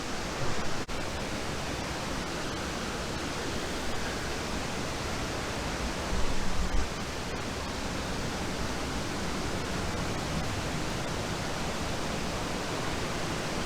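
A waterfall in heavy flood, a steady loud rush of falling water with no pauses. Two brief low thumps, about half a second in and again about six seconds in, rise above the rush.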